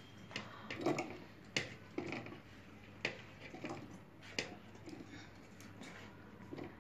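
Light, irregular knocks and taps as chopped tomato pieces are dropped and pushed from a steel plate into the plastic bowl of an electric food chopper.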